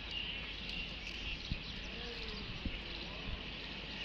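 Steady outdoor ambience: an even high hiss with a low background rumble and a few faint clicks.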